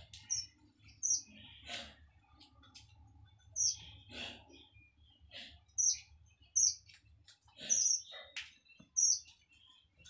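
Pet cage birds (budgies and finches) chirping: a string of short, sharp high calls, roughly one a second, some with a quick downward flick.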